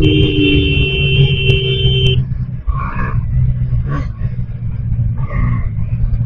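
Bajaj Pulsar NS160 single-cylinder engine running under way with its stock air filter, with heavy wind rumble on the microphone. A steady high tone sounds for about the first two seconds, then cuts off.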